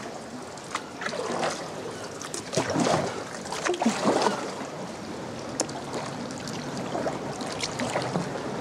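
Water splashing and lapping around a sea kayak paddling through a narrow rock channel, with irregular paddle splashes over a steady sloshing hiss.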